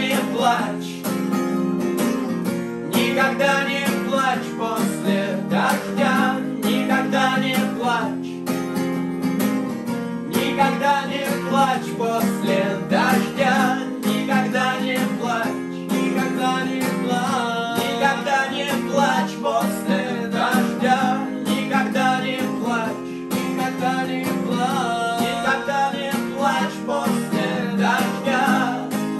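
Two acoustic guitars strummed together, with male voices singing a song in Russian.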